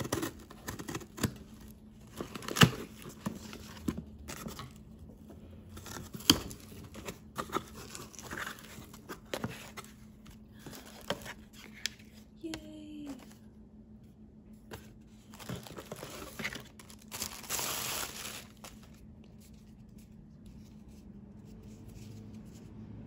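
Scissors cutting and ripping through packing tape on a cardboard box, with cardboard flaps scraping and plastic wrap crinkling as a roll of packaging tape is unwrapped. Sharp snips and rips come through the first half, and a longer burst of crinkling about seventeen seconds in.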